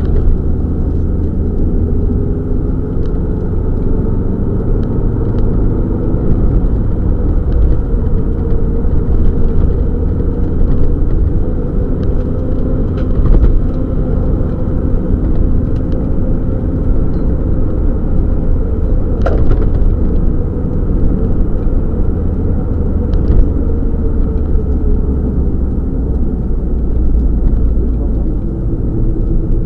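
Subaru Legacy rally car heard from inside the cabin at stage speed: the engine rising and falling in pitch through gear changes and throttle lifts over a heavy rumble of road and tyre noise. A few sharp clicks break through now and then.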